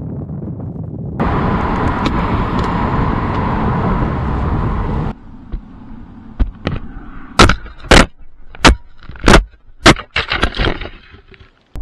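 Wind rushing past a Vozz motorcycle helmet as it is carried along at about 50 mph, loud for about four seconds, then cutting off. The helmet is then dropped at speed onto the tarmac and tumbles along the road, giving a string of about eight sharp, loud cracking impacts over about five seconds. These are the hits of a helmet crash test.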